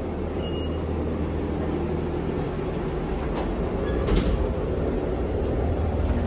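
Cabin of a trolley-style bus on the move: a steady low engine and road rumble, with a few light rattles about three to four seconds in and a short high beep about half a second in.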